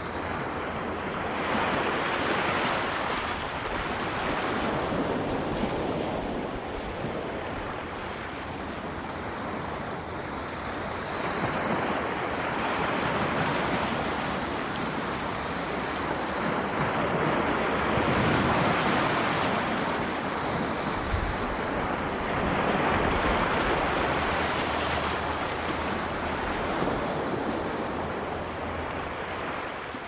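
Sea surf washing onto a shore: a continuous rush of water that swells and ebbs every few seconds.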